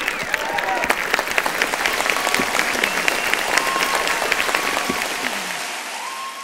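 Large audience applauding: dense, steady clapping with a few voices calling out over it. It fades out near the end.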